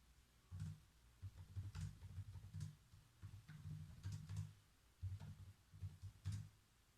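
Faint typing on a computer keyboard: irregular runs of keystrokes with short pauses between them, each key landing as a dull thud with a light click.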